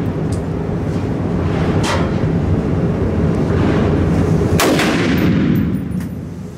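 .308 rifle fired twice, about three seconds apart, the second shot the louder, each with a ringing tail in the indoor range. A steady low rumble runs underneath.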